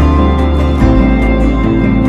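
Instrumental background music: sustained chords over a light, steady beat, with a bass note that slides down about a second in.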